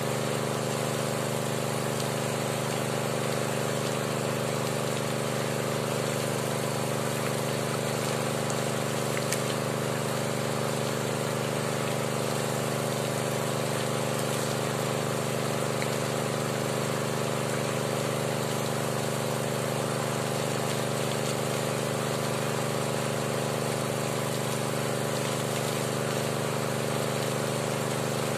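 Small petrol-engine water pump running steadily at constant speed, feeding flushing water through the hose into the drill pipe of a hand-turned bored well.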